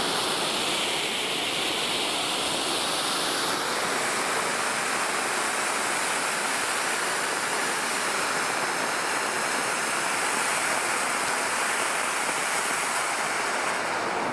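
Three small firework ground fountains (volcanoes) burning side by side, giving a steady, loud hiss as they spray sparks upward.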